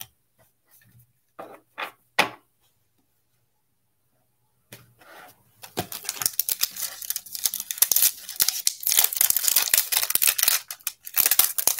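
A baseball card pack's wrapper being torn open and crinkled in the hands. A dense crackle starts about five seconds in and keeps going.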